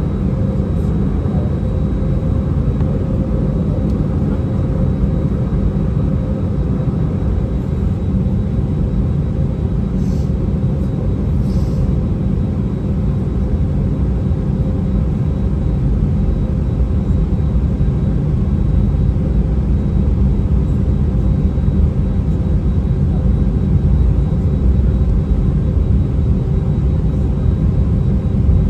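Steady low jet-engine rumble of an Airbus A319 heard from inside the passenger cabin, with a few faint steady tones in it, growing slightly louder in the last third.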